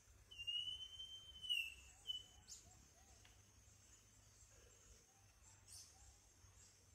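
Northern schiffornis whistling: one long, clear, slightly rising whistle lasting about a second and a half, followed at once by a short second note, over a steady high insect hiss.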